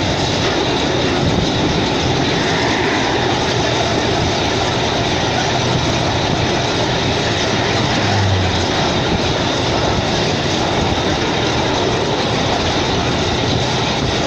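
Train running along the track, a steady noise of wheels and wind heard from inside the carriage, with a brief low hum about eight seconds in.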